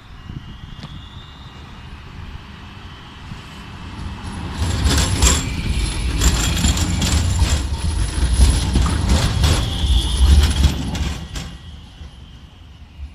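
Alstom Citadis low-floor tram passing close by. It grows loud over a few seconds, then fades as it moves away, its wheels clacking repeatedly over rail joints and points, with a thin high whine above.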